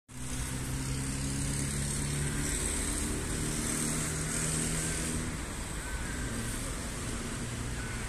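Steady low engine hum of a motor vehicle over outdoor background noise; the hum fades out about five seconds in.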